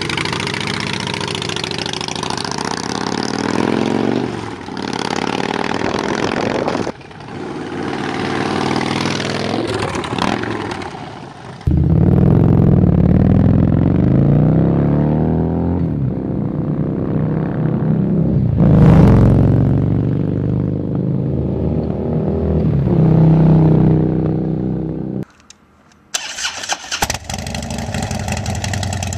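Harley-Davidson V-twin motorcycles revved one after another. A Harley cruiser is blipped up and down. A Harley-Davidson V-Rod with a Vance & Hines exhaust then revs hard and rides past about two-thirds in, and after a brief gap another Harley is started and runs with a rapid, even beat near the end.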